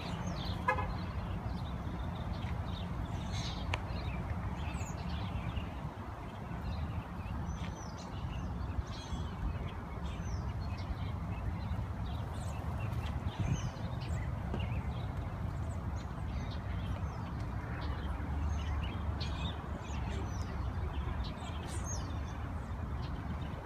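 A flock of American robins calling: many short, thin, high calls scattered and overlapping throughout, over a steady low rumble.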